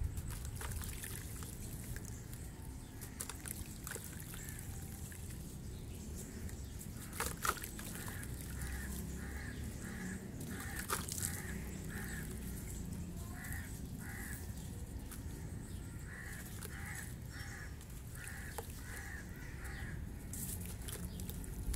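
Water dripping and trickling off a wet block of moulded brown sand into a basin of muddy water, with a few sharper splashes. A crow caws repeatedly in the background from about eight seconds in, in runs of several calls.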